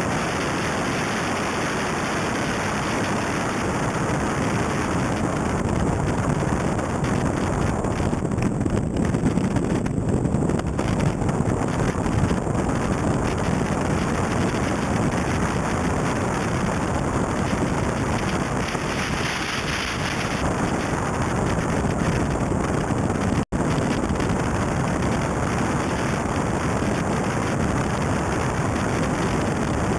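A Mitsubishi Lancer Evo III rally car at speed on gravel: its turbocharged four-cylinder engine runs under heavy wind rush on a bonnet-mounted microphone, with steady road and tyre noise. The sound cuts out for an instant about two-thirds of the way through.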